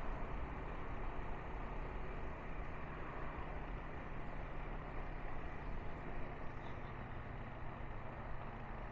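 Steady running noise of a vehicle moving along a paved street: a low even engine hum under road and wind noise.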